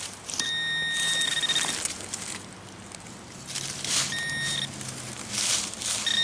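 Garrett AT PRO metal detector sounding its high-pitched target tone, on for about a second near the start, briefly at about four seconds and again near the end. The high tone is the sign of a high-conductivity target, here a copper penny. Between the tones there is the scraping of dry dirt being dug.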